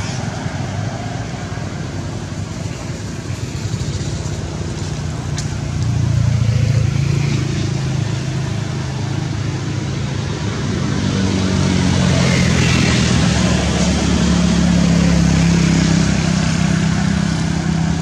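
Steady low hum of motor vehicle engines that swells louder about a third of the way in and again through the second half.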